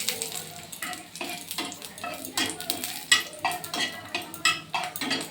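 Dried red chillies frying in hot oil in a pan, with a light sizzle, while a metal spatula stirs them, scraping and clicking against the pan many times.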